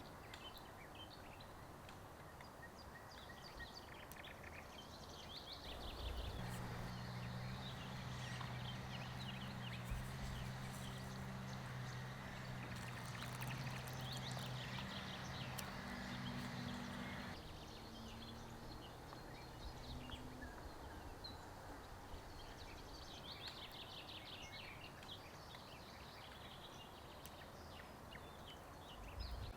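Small birds chirping in short repeated calls. From about six seconds in, a steady rushing noise with a low hum under it sets in; it is the loudest sound and cuts off suddenly about eleven seconds later.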